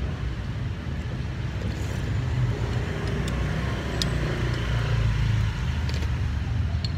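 Steady rumble of street traffic, with a light clink of a metal spoon against a ceramic soup bowl about four seconds in.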